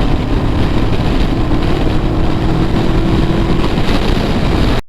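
Steady wind and road noise of a motorcycle riding at highway speed, with a faint steady hum through the middle; the sound cuts off suddenly just before the end.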